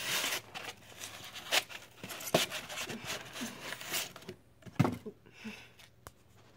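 A ceramic mug being worked out of a fitted styrofoam insert in a cardboard box: irregular scrapes, rustles and light clicks of foam and cardboard, with one louder knock about five seconds in as the mug comes free.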